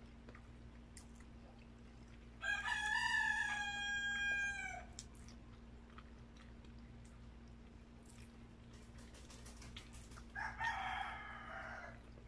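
A rooster crowing: one long crow of about two and a half seconds that drops in pitch at its end, then a second, shorter and hoarser crow near the end.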